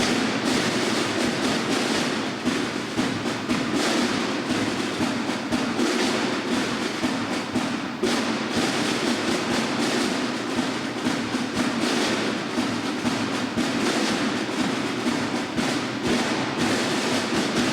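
Band playing a piece with an anvil part: loud, full ensemble music punctuated by frequent sharp metallic-percussion strikes, running to the close of the piece at the very end.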